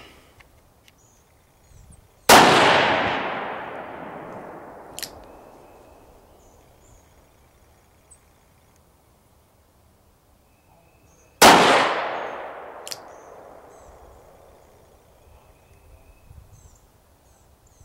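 Two shots from a Smith & Wesson Model 60 J-frame revolver firing Federal 158-grain hollow-point loads, about nine seconds apart, each a sharp crack followed by a long echoing decay. A short faint tick comes a couple of seconds after each shot.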